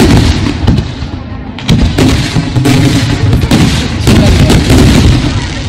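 Fireworks display going off: loud booms, a fresh one about two seconds in and another about four seconds in, each followed by rumbling and crackling.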